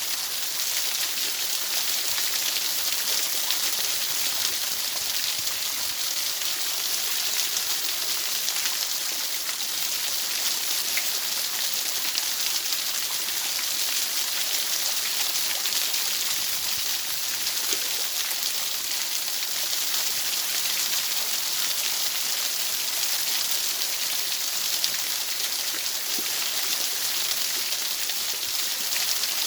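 Steady white noise: an even, unbroken hiss weighted toward the high pitches, with no change in level.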